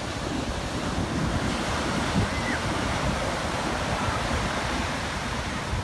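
Surf: waves breaking and washing in over the beach in a continuous noisy wash, with wind buffeting the microphone.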